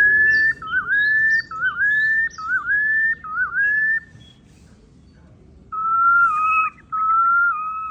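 Recorded bird calls played from an exhibit's push-button speaker: about five rising whistled phrases, a pause of nearly two seconds, then a run of level, steady whistled notes.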